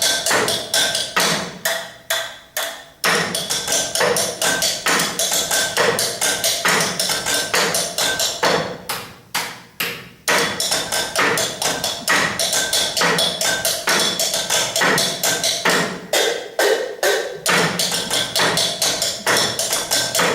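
Rhythmic percussion on drinking glasses and cutlery: a quick, steady beat of taps and knocks, several a second, with the glasses ringing. It breaks off briefly three times.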